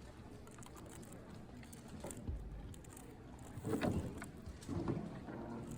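A 3x3 speedcube being turned fast by hand: rapid plastic clicking and clacking, with louder flurries of turning about four and five seconds in.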